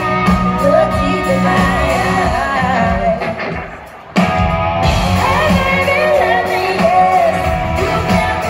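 A live country band with two women singing over electric guitars and keyboards, heard through a phone's microphone from the audience. About three seconds in the sound sinks away, then cuts back in suddenly about a second later.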